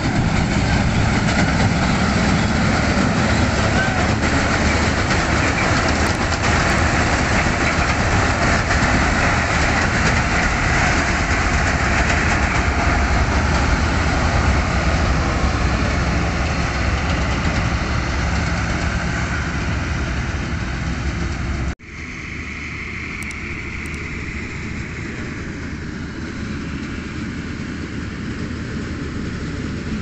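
Swaraj 8100 combine harvester running while harvesting: a steady drone of engine and threshing machinery. About 22 seconds in it cuts abruptly to a quieter run of the same steady machine sound.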